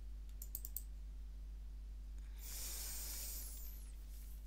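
A few quick mouse clicks, then a long breath out near the microphone, over a steady low electrical hum.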